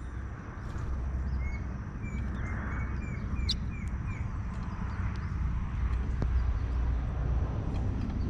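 Small songbirds calling: a quick run of about eight short, falling whistled notes about two seconds in, with scattered high chirps, over a steady low rumble.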